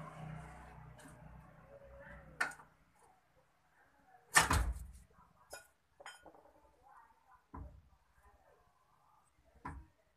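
Metal knocks and clunks from a car's steering knuckle, hub and brake disc being tilted and handled with the upper ball joint undone: one loud knock about four seconds in, with several lighter ones before and after.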